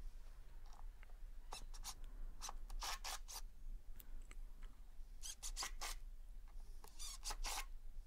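Screws being driven into wood with a cordless drill-driver, heard faintly as clusters of short scratchy bursts, three groups in all.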